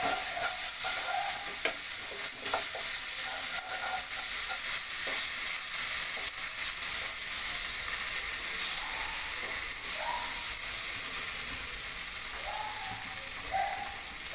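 Masala paste sizzling in oil in a nonstick kadai while a wooden spatula stirs and scrapes it around the pan, the scrapes coming in short irregular strokes over a steady sizzle.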